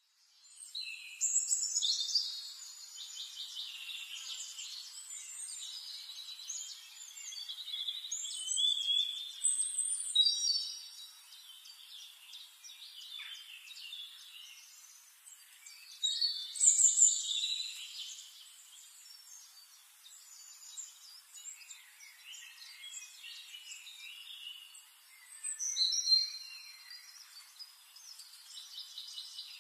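Birdsong: several birds chirping and trilling, with louder phrases every few seconds.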